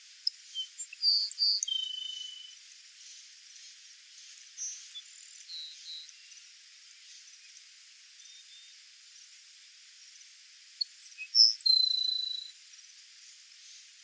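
Grassland sparrow singing twice, about ten seconds apart: each song is a few short, high notes followed by one longer, drawn-out level note. A few softer notes come in between.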